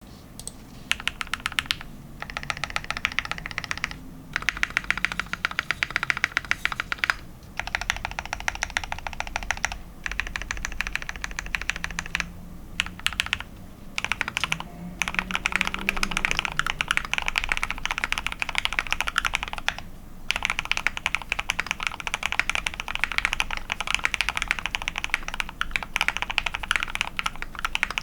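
Typing on a KBDFANS Tofu65 mechanical keyboard with lubed Gateron Oil King linear switches on a polycarbonate plate, with XDA keycaps: quick, dense keystrokes in runs broken by short pauses.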